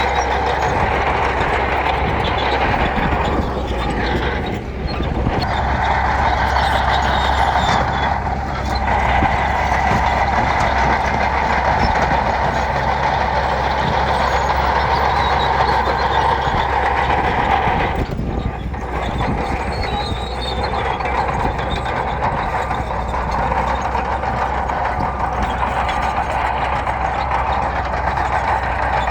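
Bulldozer's diesel engine running steadily and loudly under working load, dipping briefly three times.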